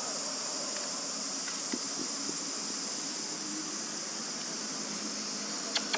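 Steady high-pitched drone of an insect chorus, with one sharp click near the end.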